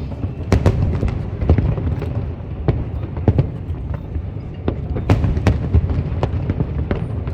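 Fireworks bursting: an irregular string of sharp bangs, two or three a second, over a continuous low rumble.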